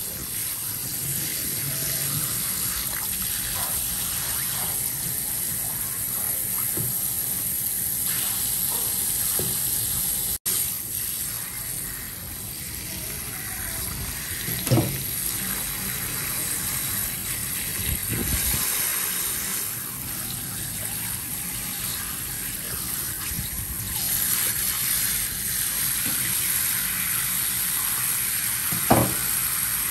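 Tap water running and splashing onto a raw squid and a plastic cutting board while hands rub and rinse it. There are two short knocks, one midway and one near the end.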